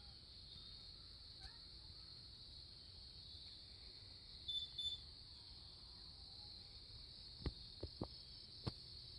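Crickets trilling steadily in a faint, high chorus. Two short high chirps come about halfway through, and several sharp clicks near the end.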